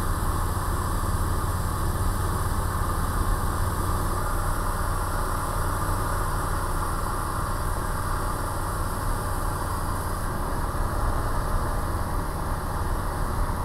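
Steady drone of a small single-engine light aircraft's piston engine and propeller in cruise flight, heard from inside the cockpit with a hiss of rushing air. The engine is running normally, its oil, cylinder-head temperature and fuel readings all in the green.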